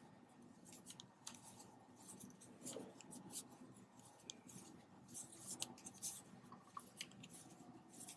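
Faint, irregular light clicks and scratches of wooden circular knitting needles and yarn as yarn overs and knit stitches are worked along a row.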